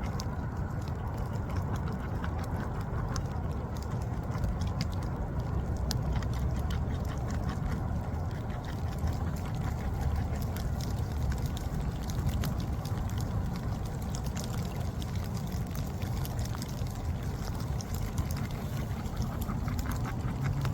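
Steady low rushing of water, with many small sharp clicks and crackles scattered over it.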